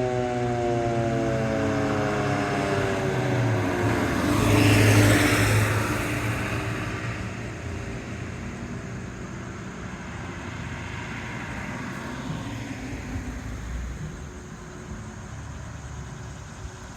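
Sentry 3V8H-B tornado siren winding down as its test ends, several tones falling in pitch together over the first few seconds. A vehicle passes, loudest about five seconds in, then fades away.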